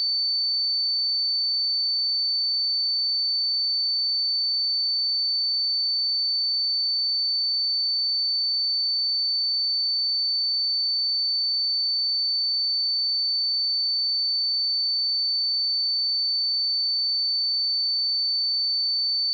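A continuous, steady, high-pitched pure sine-wave test tone at 4531 Hz, unchanging in pitch and level.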